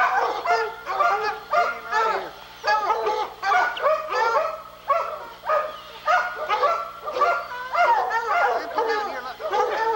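A pack of bear-hunting hounds baying and barking, several dogs at once, their calls overlapping without a break.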